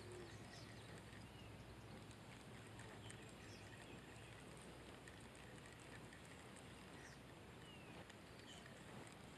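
Near silence: faint outdoor ambience with a low steady hum and a few scattered faint high chirps.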